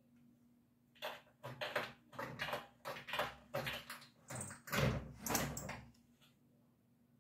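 Sliding glass window pane being shoved open along its track by a cat: a rapid, irregular run of scrapes and knocks that starts about a second in, is loudest near the end of the run, and stops about a second before the end.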